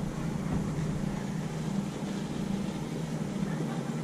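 Boat motor running steadily at low speed, a constant low hum over a noisy hiss.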